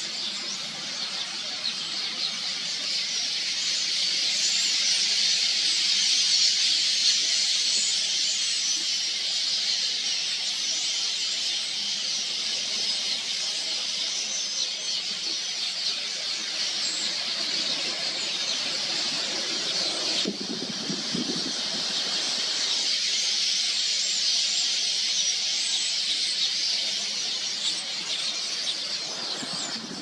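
A dense, unbroken high-pitched chatter from a huge flock of red-billed queleas, made of countless overlapping chirps. About twenty seconds in, a lower rushing sound swells for a couple of seconds.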